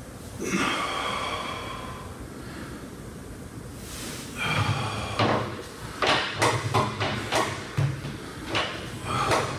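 Pilates reformer and short box creaking and knocking under a person exercising on it: a drawn-out creak about half a second in, then a run of sharp knocks and low thuds from about five seconds on.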